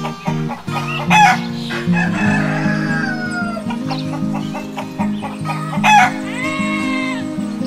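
Rooster crowing twice, about a second in and again near the end, with chickens clucking, over background music.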